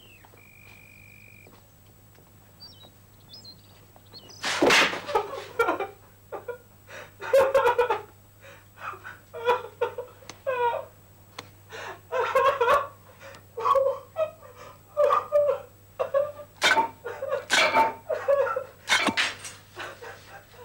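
A man sobbing: from about four seconds in, a series of choked, wordless cries about a second apart, broken by sharp gasping breaths, partly muffled behind his hand.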